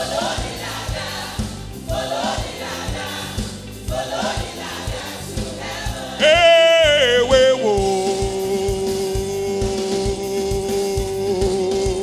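Live gospel worship music: a choir singing a repeated refrain over a band with drums keeping a steady beat. About six seconds in, one loud lead line jumps out with a wavering run, then holds a single long note to the end.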